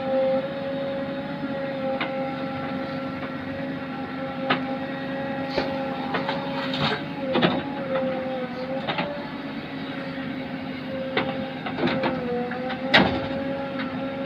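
JCB backhoe loader working, its diesel engine and hydraulics giving a steady whine that sags briefly in pitch under load twice. Scattered metallic knocks and clanks come over it, the loudest near the end.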